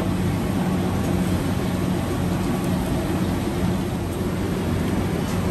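Steady low mechanical hum over a rushing noise, the constant background drone of machinery running in a food-stall kitchen.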